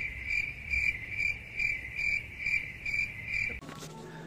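An insect chirping in a steady rhythm, a bit over two short chirps a second at one pitch, over a low rumble; it cuts off abruptly near the end.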